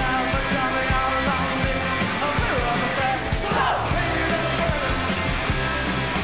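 Live indie rock band playing: electric guitars and bass over a steady drum beat.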